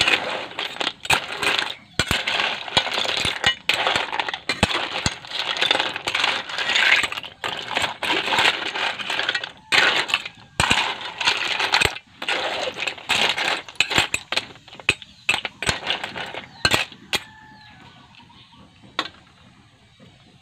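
Mixed sea shells (clams, cockles and snails) clattering against each other and against a metal wok as they are stirred with a ladle: a dense run of clinks that thins to a few scattered clicks in the last few seconds.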